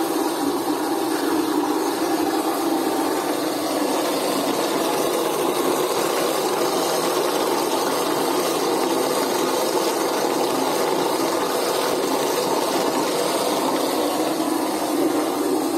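Electric motor of a homemade bucket soap mixer running steadily and noisily, its blade churning used cooking oil and caustic soda solution as the soap mixture is beaten.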